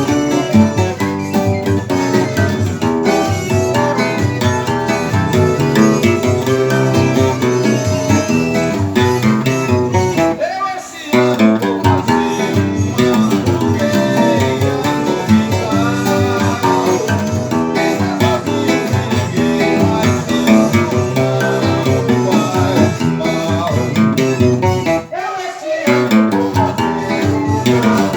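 Instrumental music on plucked strings led by a steel-strung seven-string acoustic guitar (violão de sete cordas), playing a busy picked tune. It breaks off briefly about eleven seconds in and again near the end.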